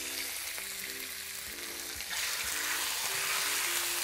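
Strips of raw chicken thigh sizzling as they go into hot vegetable oil in a pan over medium-high heat. The sizzle grows louder about two seconds in.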